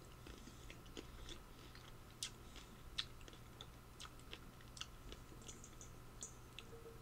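A person chewing food, faint and close: irregular small wet clicks and smacks from the mouth.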